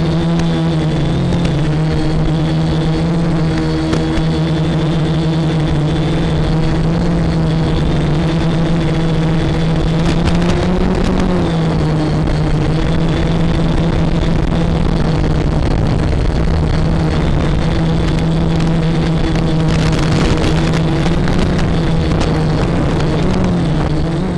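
Quadcopter's electric motors and propellers buzzing steadily with a thin high whine, the pitch briefly dipping and rising with throttle changes a couple of times.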